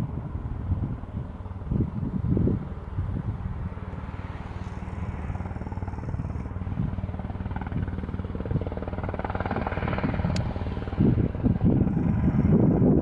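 An aircraft engine running steadily at an airfield, swelling louder towards the end, with gusts rumbling on the microphone near the start and again near the end.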